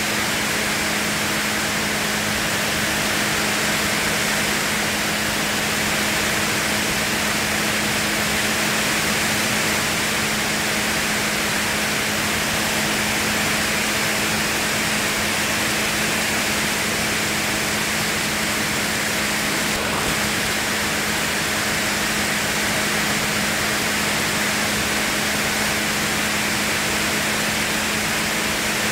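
Steady rush of airflow on an aircraft in flight, with a constant low hum beneath it.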